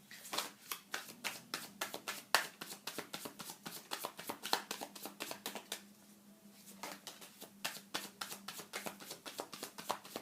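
A deck of tarot cards being shuffled by hand: a rapid run of card snaps and flicks, with a brief pause about six seconds in before it starts again.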